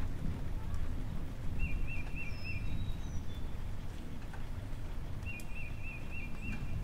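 Birdsong over a steady low rumble: a short warbling trill repeats about every three and a half seconds, with a few faint higher chirps between.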